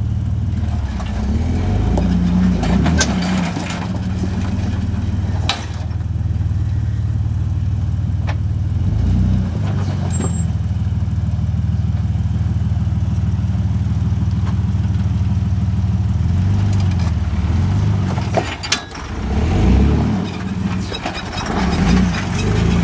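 Jeep Wrangler engine running steadily under load as it crawls up a rock ledge, with a few sharp knocks from the rocks or chassis. Late on, the engine note dips and swells unevenly.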